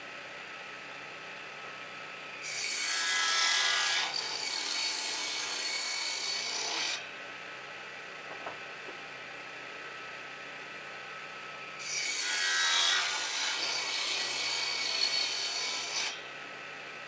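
A power tool runs steadily and cuts into wood twice: once about two seconds in and again near the middle, each pass lasting roughly four seconds and louder than the running between them.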